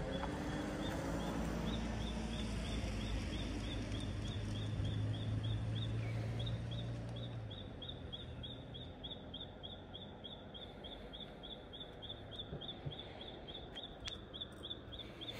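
A small animal calls a short, high chirp over and over at an even pace, about four a second, over a low rumble that fades after about seven seconds.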